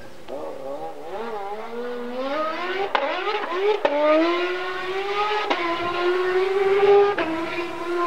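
Rally car engine accelerating hard through the gears: the note wavers on and off the throttle, then climbs, dropping back with a sharp crack at each of about four gear changes.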